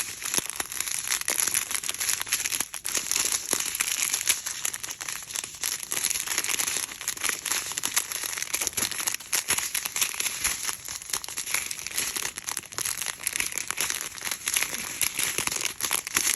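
Small plastic baggies of diamond painting drills crinkling continuously as they are picked up, turned over and sorted by hand, with a dense run of small clicks.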